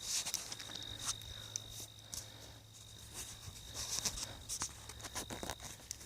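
Scattered footsteps scuffing and crunching on loose dirt and gravel, over a steady high-pitched whine and a low hum.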